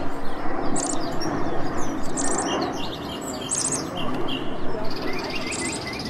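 Small songbirds chirping: a short, high trill repeats about every second and a half, with lighter chirps between, over a dense background hubbub.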